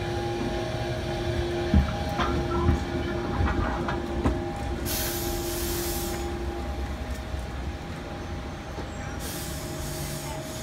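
Stadler Citylink Class 399 tram-train running slowly past at close range, its traction equipment giving a steady whine of several tones. Its wheels knock sharply a few times over rail joints in the first few seconds. Two bursts of hiss come in, one around the middle and one near the end.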